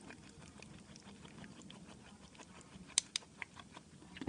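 A thick slime base of white glue, baby oil, hand sanitizer, face powder and water being stirred, a soft wet squishing with many small clicks, two sharper ones about three seconds in. The mixture is thickening as it is stirred.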